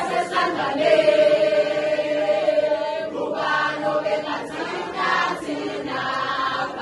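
A large crowd of school pupils singing together in chorus, with a long held note followed by a new phrase about three seconds in.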